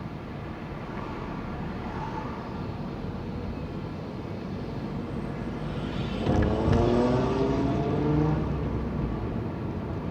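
Car driving, with steady engine and road noise heard from inside the cabin. About six seconds in, an engine grows louder and rises in pitch for a couple of seconds as it accelerates.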